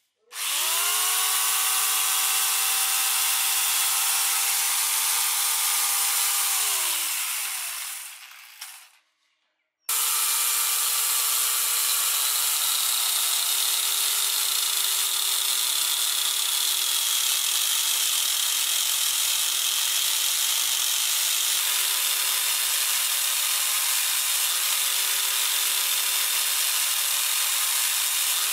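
Electric angle grinder driving a chainsaw adapter bar and chain: the motor spins up with a rising whine, runs steadily, then winds down. After a short pause it runs again while the chain cuts through a small tree trunk, its pitch slowly sagging under the load.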